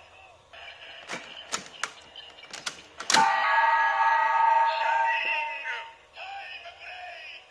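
Ziku-Driver toy belt with the Agito Shining Ridewatch: a run of sharp plastic clicks as the driver is worked by hand. About three seconds in, its speaker plays a loud electronic finisher effect with steady tones, and near the end it announces 'Shining Time Break!'.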